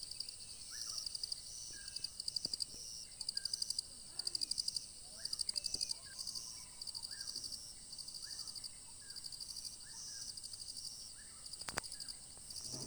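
Insects chirping: a steady high-pitched buzz with rhythmic pulsed trills repeating in short bursts about every second. Birds give short chips throughout, and there is a single sharp click near the end.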